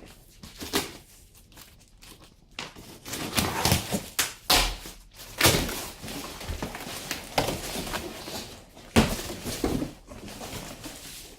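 A series of irregular knocks and thuds, with stretches of rustling noise between them.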